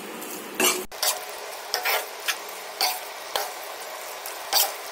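A spatula stirring egg Manchurian gravy in a hot pan: short scraping strokes come unevenly, about every half second, over a steady sizzle.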